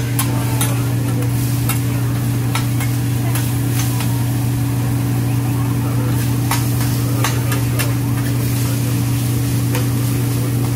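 Food sizzling on a hibachi griddle, with irregular sharp clicks of metal spatulas striking the griddle, over a steady low hum.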